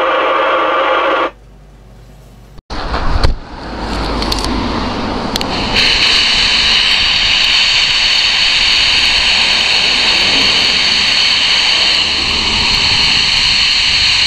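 A CB base station's speaker hisses with an open channel, then is turned down sharply about a second in. After a break, wind and traffic rumble, and from about six seconds a loud steady hiss comes from the Harvard WT1 single-channel CB walkie-talkie held close, its receiver open because the set has no squelch.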